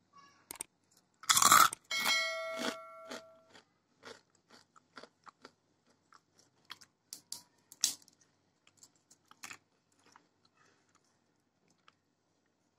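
A crisp, crunchy snack bitten into with a loud crunch about a second and a half in, then chewed with many short crunches that grow sparser and fainter toward the end.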